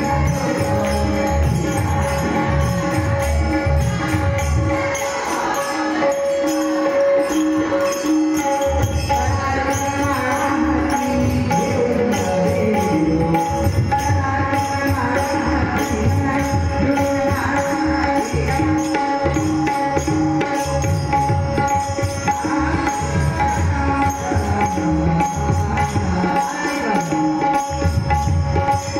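Tabla playing a steady rhythm under music with a sustained drone and a melody line; the low drum strokes drop out briefly twice.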